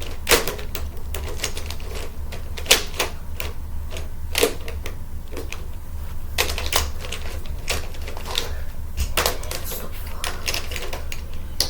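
A plastic Rubik's twisty puzzle (a "Rubik's block") being turned by hand, giving loud, irregular clicks and clacks of plastic pieces snapping into place.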